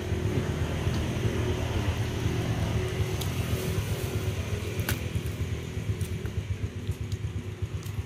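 An engine running steadily nearby, a low rumble. There is a single sharp knock about five seconds in.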